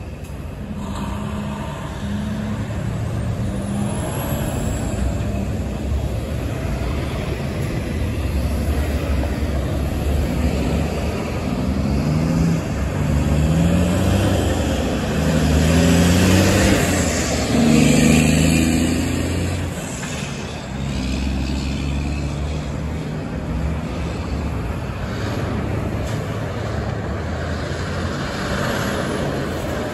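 Street traffic with trucks passing and pulling away. Around the middle, a heavy diesel truck engine accelerates through its gears, its pitch climbing and then dropping back several times in steps.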